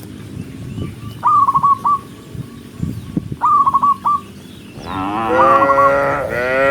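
A cow mooing: one long call of about two seconds near the end. Before it, a short high call of four quick notes sounds twice.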